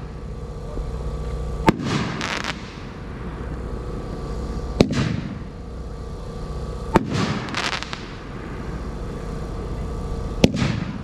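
Phantom Fireworks 3-inch crackling brocade shots firing one after another: four sharp launch thumps roughly every two and a half to three seconds, each followed about half a second later by the burst and its crackle.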